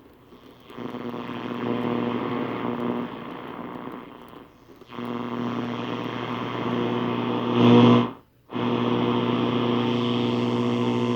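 Static and a steady buzzing hum from a Zenith Trans-Oceanic Royal RD7000Y transistor radio's speaker, with no speech or music coming through. The sound drops out briefly about 4.5 s in and again about 8 s in, just after a louder swell.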